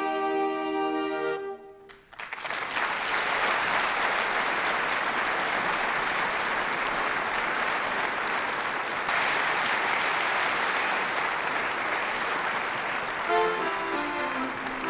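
A brass ensemble holds a final chord that stops about a second and a half in. After a brief hush a large theatre audience applauds steadily, and near the end a violin and an accordion begin to play.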